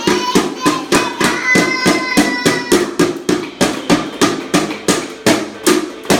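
Steady rhythmic banging, about three knocks a second, with a held high-pitched tone over the first three seconds.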